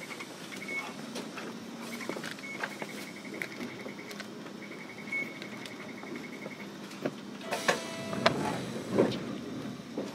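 Inside a Hiroden 700 series tram standing at a stop: a high, rapidly pulsing beep sounds on and off for the first six or seven seconds over a low steady hum. About 7.5 s in a short buzzer tone sounds, followed by a few knocks and thumps, as the doors close before departure.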